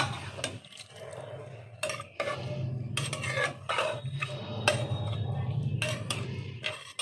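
Steel spatula stirring cauliflower curry in an aluminium pressure cooker, scraping and clinking against the pot's metal sides in irregular strokes.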